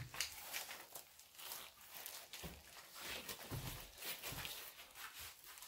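Interlocking foam floor mats being handled and laid down, with scattered soft thumps, rustles and light clicks.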